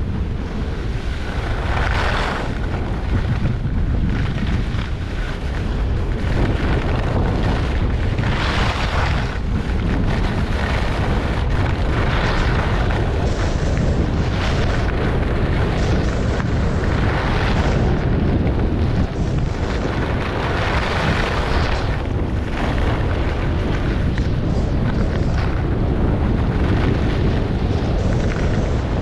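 Wind buffeting the microphone in a steady low rumble at skiing speed, with skis hissing and scraping over groomed snow in surges every few seconds as they carve turns.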